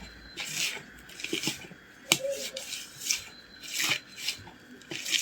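Hands kneading and rubbing damp bait dough in a plate, a scraping rub repeating roughly once a second, with one sharp click about two seconds in.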